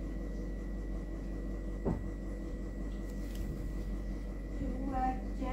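Steady background hum with a thin high whine, a single sharp click about two seconds in, and a distant voice starting near the end.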